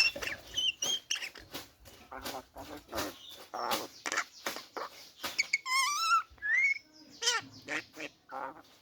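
Common myna calling in a rapid, varied string of harsh squawks, clicks, chatter and whistles, with a wavering trill and a rising whistled note about six seconds in.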